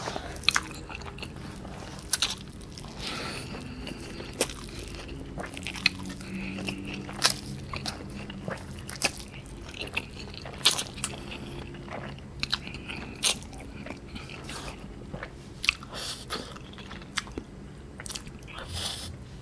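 Close-miked eating sounds of a man eating Samyang cream carbonara instant ramen noodles: chewing and drawing noodles into his mouth, with sharp, irregular wet mouth clicks.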